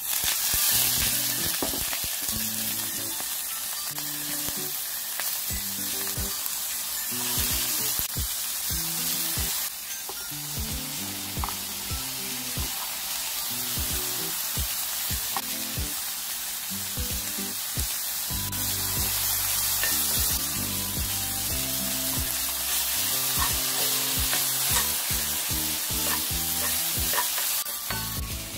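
Chicken tenderloin and diced onion sizzling steadily in hot oil in a nonstick frying pan as they are stir-fried, with occasional small taps of the utensil on the pan.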